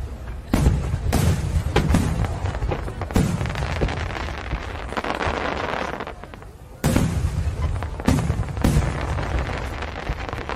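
Aerial firework shells bursting: a string of about seven sharp booms, each trailing off in a low rumble, with a quieter lull about six seconds in before the booms resume.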